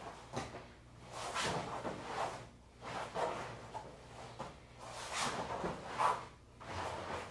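Repeated soft scuffing and rustling, roughly one swell a second, as a body and gi slide and turn on a foam floor mat during a hip-switch drill.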